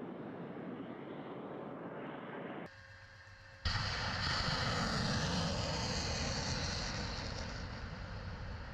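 A steady outdoor rushing noise, then after a brief drop a sudden loud roar about three and a half seconds in that slowly fades.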